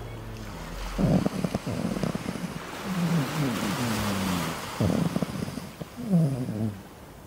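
Chihuahua puppy grumbling and moaning in its sleep, in three bouts of low sounds that fall in pitch, over a steady wash of ocean surf.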